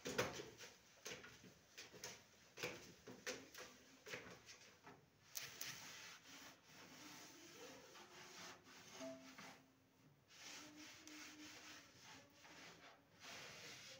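Folding metal step ladder clicking and knocking under someone's feet as they climb onto it during the first five seconds, then faint rubbing and shuffling.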